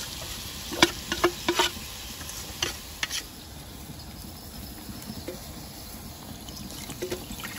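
Cooking utensil knocking and scraping against a pan of turmeric-marinated fish frying, with several sharp knocks in the first three seconds. After that comes a quieter steady sizzle, with faint insect chirping.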